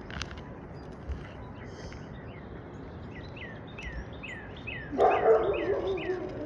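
Outdoor bird calls: short falling chirps repeating about twice a second. Near the end, a louder animal call lasts about a second and a half.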